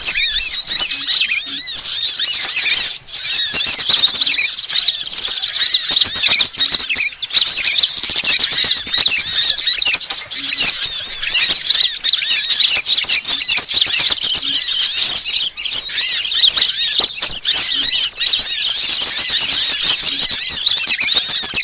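Dense, unbroken chirping and twittering of several small songbirds at once, many quick high-pitched chirps overlapping: a bird-lure (pikat) call track that mixes the calls of sunbirds, bulbuls and other small birds.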